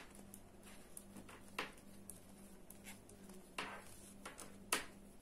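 Knitting needles clicking faintly and irregularly as a garter-stitch row is knitted, over a faint steady low hum.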